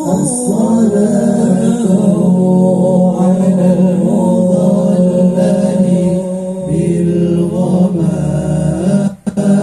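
Vocal music: chant-like singing, continuous and loud, with a brief break near the end.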